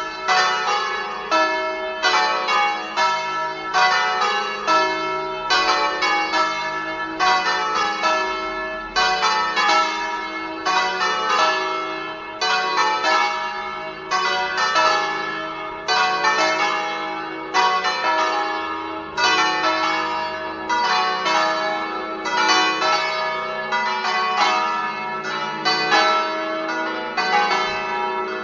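The five bronze church bells of San Domenico's tower, tuned E, F#, G#, A and B and recast by Colbachini of Padua in 1948, swinging together in a full peal (plenum). Their strikes overlap in a steady, unbroken clangour, several strokes a second.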